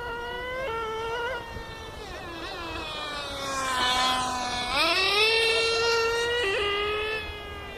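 Small nitro engines of radio-controlled cars revving loudly, their pitch rising and falling. Partway through it sinks to a lower drone, then about five seconds in it climbs sharply to a high whine and holds there before easing off near the end.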